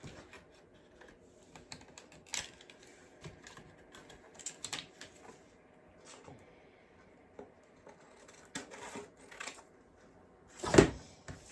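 Light, scattered clicks and taps of craft pieces being handled and set down on a tabletop, with one louder knock near the end.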